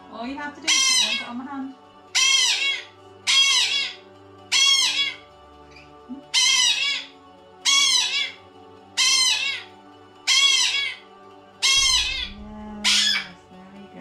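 Young bronze-winged pionus parrot squawking loudly over and over, one harsh call about every second and a half, ten in all, over steady background music.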